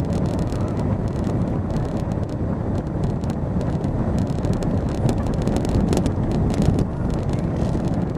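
A car driving slowly along a town street, heard from inside: a steady low rumble of engine and tyre noise.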